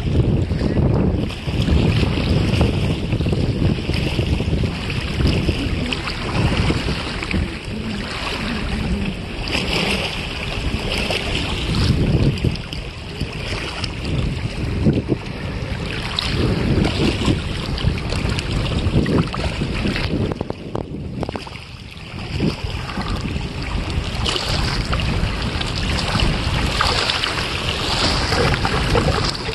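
Wind gusting on the microphone over small waves lapping at a lake's edge.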